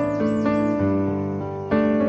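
Instrumental piano music with held chords; a new chord is struck near the end.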